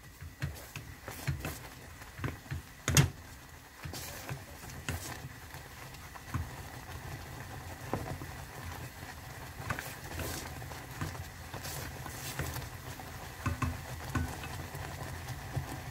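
Wooden spoon stirring glutinous rice paste in a stainless steel pot as it cooks and thickens, with irregular knocks and scrapes of the spoon against the pot over a steady low rumble. The sharpest knock comes about three seconds in.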